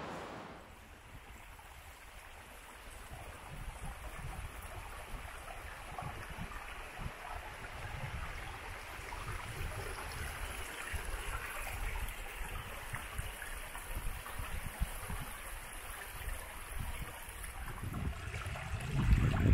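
Running water flowing steadily, with uneven low rumbles underneath that grow loudest near the end.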